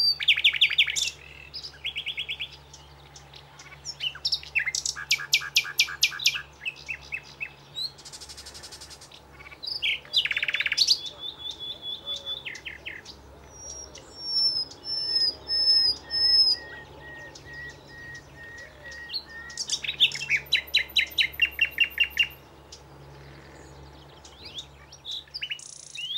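Common nightingale singing: varied phrases separated by short pauses, including fast rattling trills of rapidly repeated notes, whistles, and, in the middle, a run of clear, repeated piping notes.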